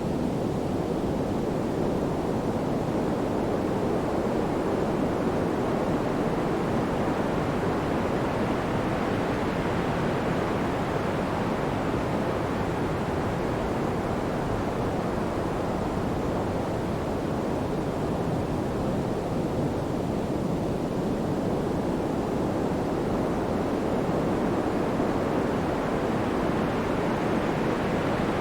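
Pink noise: a deep, even hiss that slowly brightens and dulls over several seconds at a time.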